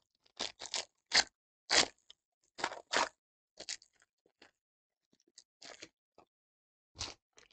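Foil wrapper of a Panini Absolute football card pack crinkling and tearing as it is ripped open and peeled off the cards. It comes as a string of short, crackly bursts, loudest in the first few seconds, with one more near the end.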